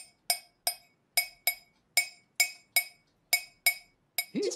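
A teaspoon tapping a ceramic mug: about ten clinks in a steady rhythm, each ringing briefly. Near the end a short sliding voice-like call rises and falls.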